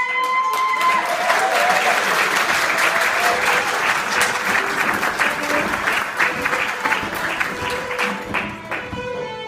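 Audience applauding loudly, easing off near the end, with a few held instrument notes sounding underneath.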